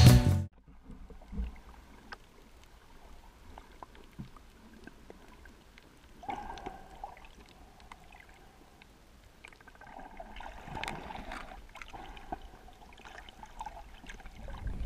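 Intro music cuts off about half a second in, followed by faint, muffled underwater sound from a camera submerged over a seagrass bed: soft gurgling water noise and scattered small clicks.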